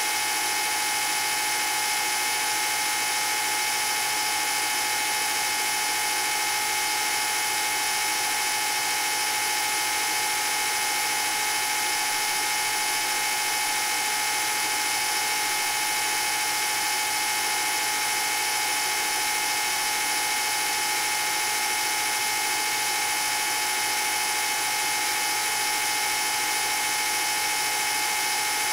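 Film projector running: a steady mechanical whine of its motor, with several held tones over an even hiss that never changes.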